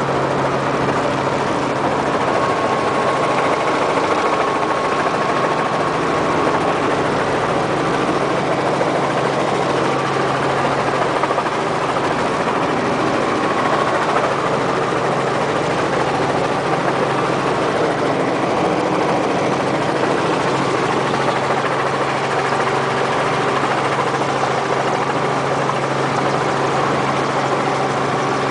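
Helicopter running steadily on its landing approach: a loud, even drone with a low hum and a faint high whine.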